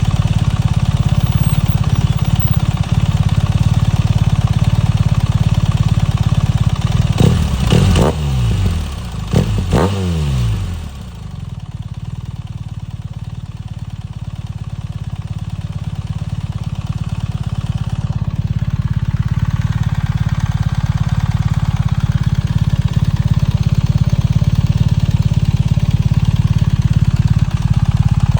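2024 BMW R 1300 GS boxer-twin engine running through an Akrapovič titanium header and Akrapovič silencer: idling steadily, blipped twice quickly about seven and nine seconds in, the revs rising and falling each time before it settles back to idle.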